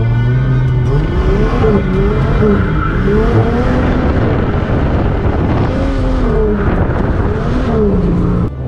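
Turbo Ford AU Falcon drift car's engine heard from inside the cabin, revving up and down again and again as the car is drifted, with tyre noise underneath. It settles back to a steady drone near the end.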